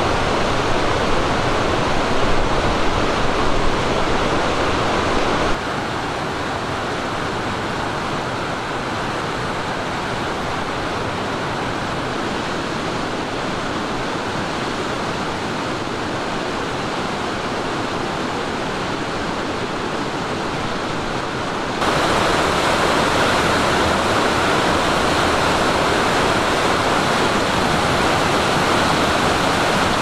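Steady rushing of a mountain river's flowing water. The level drops abruptly about five seconds in and jumps back up about 22 seconds in.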